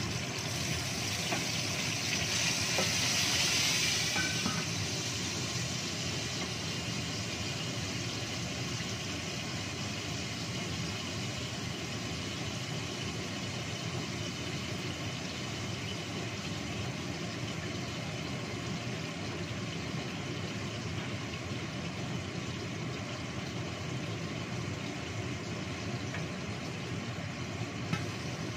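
Chillies frying in oil in a wok under a stainless-steel lid: steady sizzling over a low rumble, with louder, hissier sizzling for the first few seconds. A single small knock near the end.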